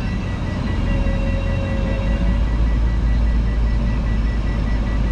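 Toyota Tundra pickup, heard from inside the cab, backing up slowly under light throttle: a steady low engine rumble with a rapid, evenly repeating high electronic warning beep from the truck.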